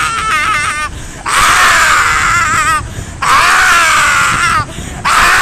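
A man screaming loudly at close range: a run of long, high screams with a wavering pitch, each broken off by a short breath about every one and a half seconds.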